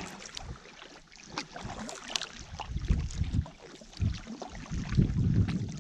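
Canoe paddles dipping and pulling through calm lake water, a soft swish and gurgle with each stroke about once a second, with small splashes and drips.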